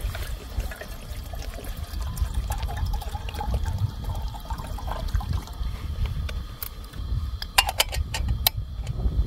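Water poured from a plastic bottle into a small kettle, followed about eight seconds in by a few sharp clicks as the kettle's lid is fitted, over a low rumble.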